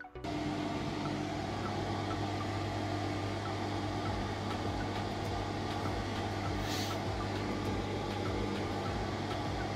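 Bathroom ventilation running loudly: a steady rushing noise over a constant low hum.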